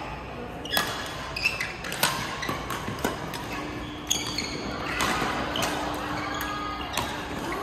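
Badminton rackets striking shuttlecocks: irregular sharp pops, about one a second, from rallies on several courts.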